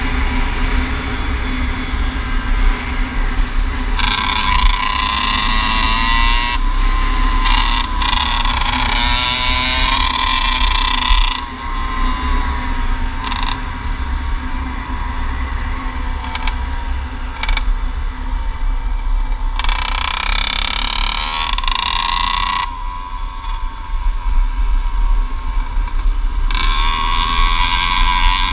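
Dirt bike engine running at riding speed, its note rising and falling repeatedly as the throttle opens and eases, over a constant deep wind rumble on the microphone.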